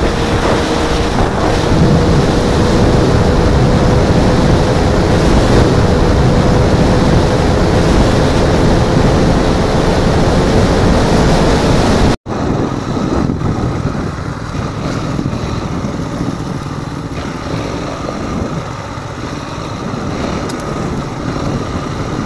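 Motorcycle riding at speed, wind buffeting the onboard microphone over a steady engine whine. About twelve seconds in the sound cuts off and resumes as quieter motorcycle riding noise.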